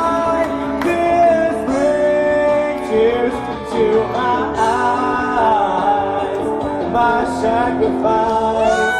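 A woman singing a song live into a handheld microphone over instrumental accompaniment, holding long notes.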